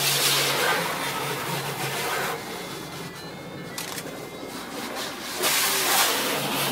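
Automatic car wash heard from inside the car: a steady hiss of water spray and brushes working over the body. It eases about two and a half seconds in and comes back louder a little before the end.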